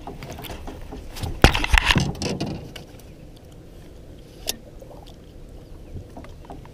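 Handling noise from a baitcasting rod and reel being worked against a hooked musky, with jacket sleeves rustling close to the microphone. A cluster of sharp knocks comes about one and a half to two seconds in, and a single knock comes a little after four seconds.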